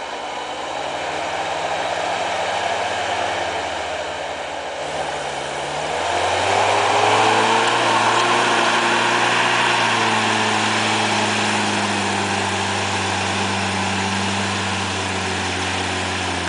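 Lifted Toyota pickup's engine pulling at low revs, then rising in pitch and loudness about six seconds in and holding there under load as the truck crawls through deep snow. A steady hiss runs underneath.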